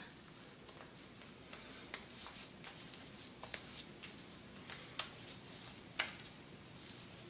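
Faint soft clicks and scratchy rustles of a hand spreading shaving foam over a stubbly face, a few seconds apart.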